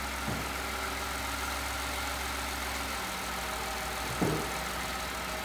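Ford pickup's six-cylinder engine idling steadily, with a short clunk about four seconds in as one ignition coil is being unplugged under the hood.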